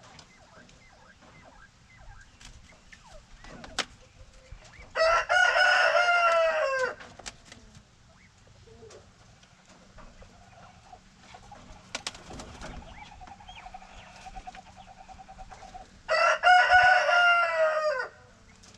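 A rooster crowing twice, about ten seconds apart. Each crow lasts about two seconds and drops in pitch at the end. Between the crows comes a fainter, steady pulsing call.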